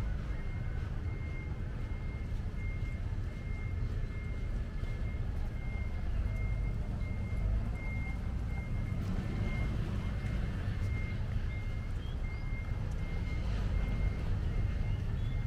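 Steady low rumble of outdoor city background, with a faint high electronic beep repeating about twice a second, like a vehicle's reversing alarm.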